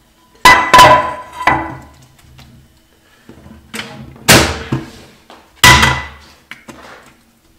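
A frying pan knocked against the rim of a metal bowl, giving several loud metallic clanks with a short ring, three in the first second and a half and more a few seconds later, as leftover melted wax is shaken out. The last clank is the pan being set down on a portable gas stove.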